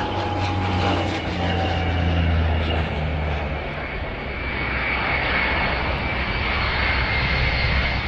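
Engine noise of a low-flying airplane passing over: a steady drone whose deep hum fades after about three seconds, while a high, steady whine comes up about halfway through.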